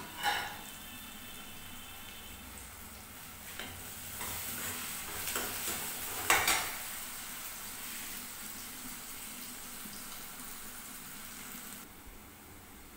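A spiced onion mixture sizzling in a metal kadai on a gas flame, with a steel ladle stirring and scraping the pan. The stirring is busiest in the middle, with one sharp scrape about six seconds in, and the sizzle grows a little quieter near the end.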